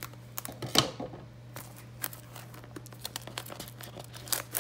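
Cellophane shrink wrap being picked at and peeled off a cardboard trading-card box: scattered crinkles and crackles, with a louder rip just under a second in, over a steady low hum.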